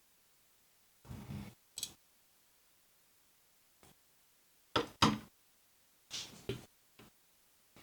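Scattered short knocks and clicks of hard objects being handled, with silence between them; the loudest is a sharp pair of knocks about five seconds in.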